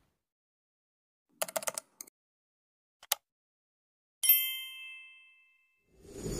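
A single metallic ding, struck once and ringing out for about a second, after a few faint clicks. A steady hum and hiss comes in just before the end.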